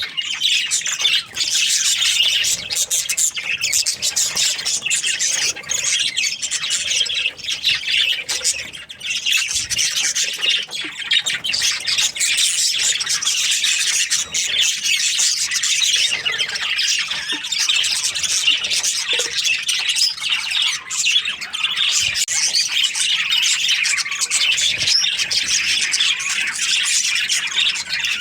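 A flock of budgerigars chattering and squawking together, a dense, unbroken mass of high-pitched chirps with no pauses.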